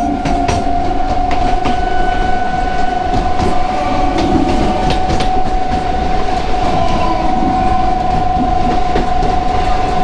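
Suburban electric local train running along the track: a steady high whine held throughout over a rumble, with scattered clicks of the wheels over the rail joints.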